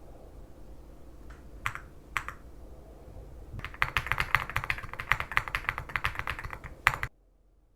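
Typing on a Dark Alien K75 Pro mechanical keyboard: two single key presses, then a quick run of keystrokes for about three seconds. It ends with a louder clack and cuts off suddenly.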